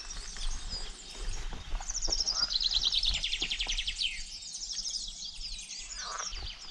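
Several songbirds singing in pine woods: short repeated chirps throughout, and a fast trill that slides down in pitch about two seconds in, with another trilled phrase near the end. Soft, irregular thuds of footsteps on stony ground underneath.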